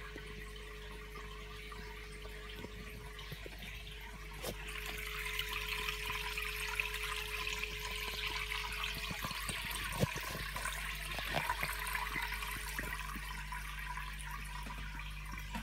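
Aquarium water trickling and splashing over a steady hum, the trickle growing louder about four seconds in, with a few light knocks near the middle.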